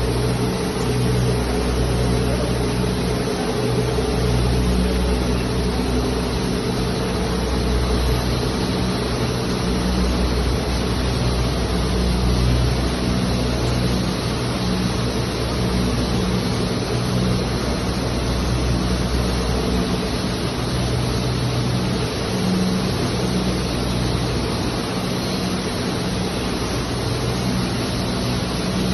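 Steady din of a popcorn processing line running: a low, wavering machine hum under a constant even rush of motor and fan noise.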